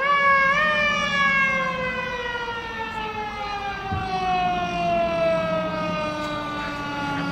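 Fire engine's mechanical siren winding up quickly and then coasting slowly down in one long falling wail, over the low drone of the truck, as the engine responds to a call.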